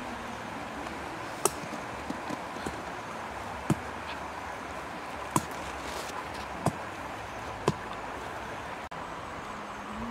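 Charcoal fire under a spit roast: a steady hiss with five sharp pops spaced a second or two apart.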